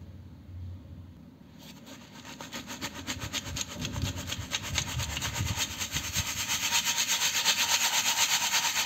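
Crumbled cement being shaken in a round metal sieve: a rapid, rhythmic rasping of grit against the sieve, starting a couple of seconds in and growing louder.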